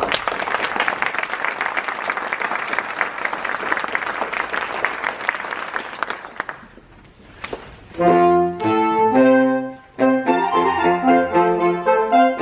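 Audience applauding for about six seconds, then dying away. After a short hush, a saxophone quartet starts playing chords in short phrases, with a brief break about ten seconds in.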